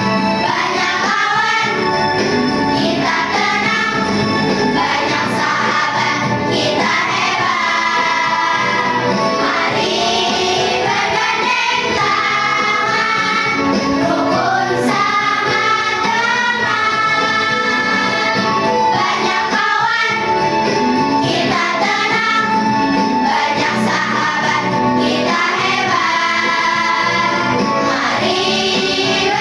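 Children's choir singing in unison phrases over instrumental accompaniment.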